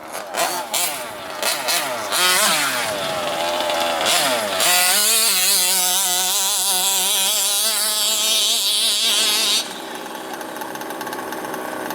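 Small two-stroke petrol engine of a large-scale FG RC monster truck revving: several short blips in the first few seconds, then held at high revs for about five seconds before dropping back near the end.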